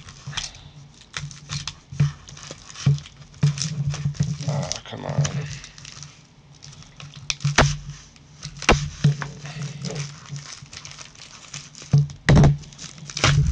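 Hands handling and tearing open a blue padded plastic mailer: plastic crinkling and rustling, with sharp crackles and clicks at irregular moments. A steady low hum runs underneath.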